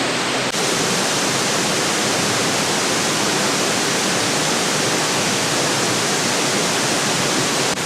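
Waterfall close to the microphone: a loud, steady rush of falling water, an even hiss that fills everything, with only a slight break about half a second in.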